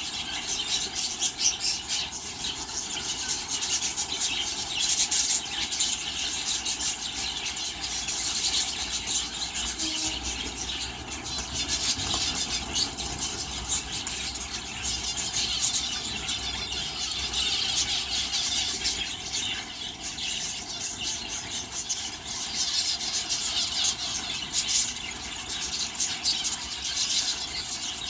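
A flock of aviary budgerigars chattering and chirping continuously, many high calls overlapping.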